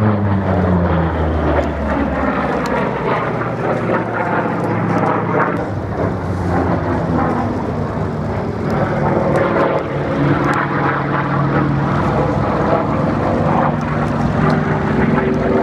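Grumman F8F Bearcat's Pratt & Whitney R-2800 radial engine and propeller running at display power as the fighter flies overhead. The drone drops in pitch over the first couple of seconds as the aircraft passes, then holds steady.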